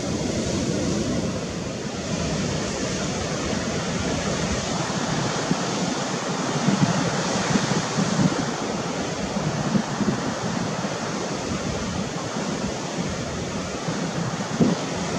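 Steady wash of sea surf with wind buffeting the microphone, which brings a few brief louder gusts.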